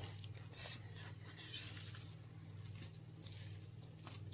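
A spatula turning freshly steamed khichuri in a wok: faint soft scrapes and squishes of the rice, with one short, louder scrape about half a second in, over a steady low hum.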